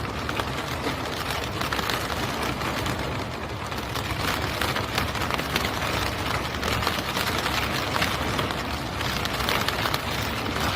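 Steady rain pattering on a car window, with a dense run of small drop ticks.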